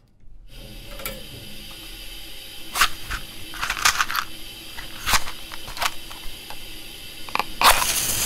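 Steady hiss fading in, with irregular crackles and sharp clicks scattered through it and a longer crackling rush near the end.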